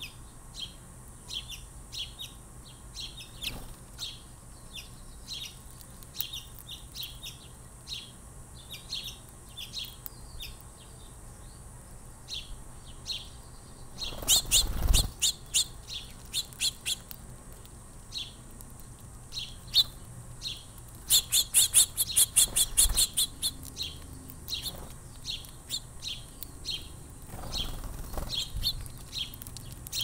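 Small songbirds at a seed feeder, house finches and house sparrows, chirping repeatedly in short high notes. About 14 and 21 seconds in come two louder flurries of rapid clicking chatter or fluttering.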